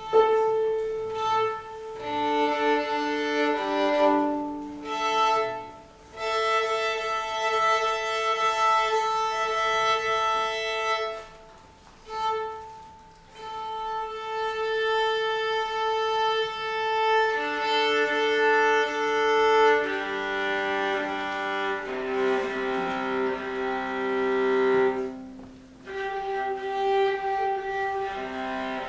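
Piano quartet playing classical music, with a violin and other bowed strings holding long, sustained melodic notes over the ensemble. The playing comes in phrases, with three brief pauses between them.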